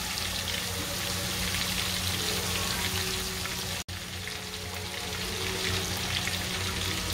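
Chicken thighs shallow-frying in hot oil in an aluminium pot: a steady sizzle dotted with small crackles and spits. It drops out for an instant about four seconds in.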